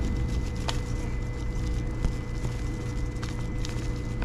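Steady low hum with a thin, constant whine over it, and a few faint light ticks.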